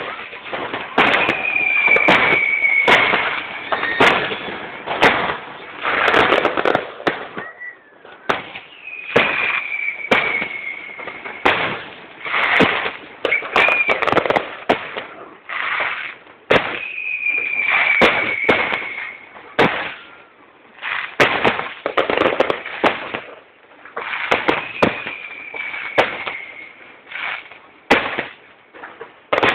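Aerial fireworks display: rapid bangs and crackling bursts throughout, with a high whistle falling slightly in pitch four times, about every eight seconds.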